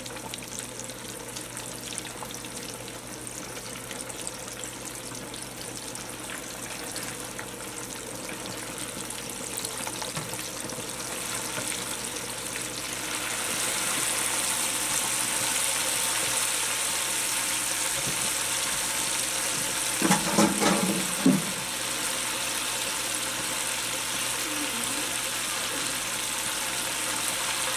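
Battered chicken breasts sizzling in hot oil in an open pressure-cooker pot, just lowered in so the oil temperature is dropping. The steady sizzle grows louder and brighter about halfway in, with a brief pitched sound about twenty seconds in.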